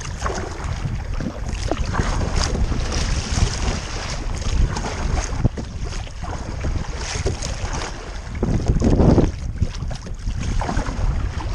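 Choppy sea water splashing and slapping against the hull of a sit-on-top sea kayak under way, with wind buffeting the microphone. There is a louder rush of water and wind about nine seconds in.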